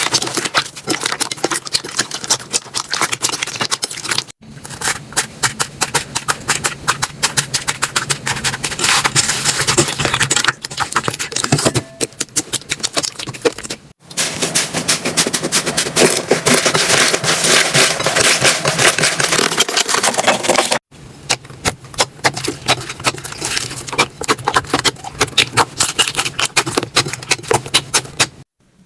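Slime being squeezed, pressed and poked by hand, making dense, rapid crackling and clicking. The sound stops abruptly three times and starts again with a different texture.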